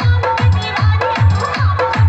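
Electronic DJ dance-mix music with a heavy, steady kick drum about four beats a second and a repeating synth line above it.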